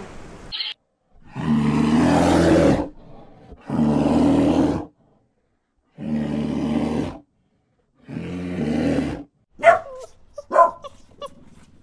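Four long, deep calls from a large animal, each about a second, with silent gaps between them, followed near the end by a few short, sharp dog yelps.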